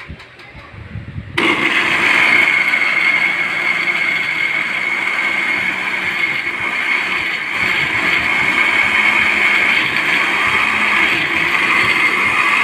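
Electric countertop blender starting suddenly about a second and a half in, then running steadily, puréeing garlic, onion and other marinade ingredients into a liquid in its glass jar.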